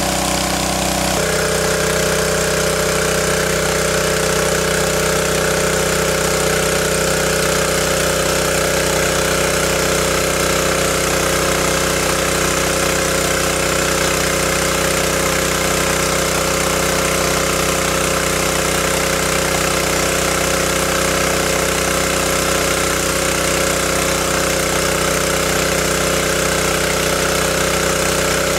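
Small engine-driven water pump running steadily, with water gushing from its discharge hose. Its tone shifts slightly about a second in, then holds steady.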